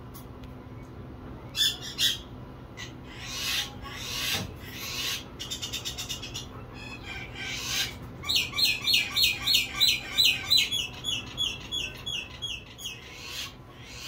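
Superb fairywren singing: scattered high chirps and a short fast trill, then from about eight seconds in a long reeling run of loud, high, repeated falling notes, about four a second, that tails off into quicker, softer notes.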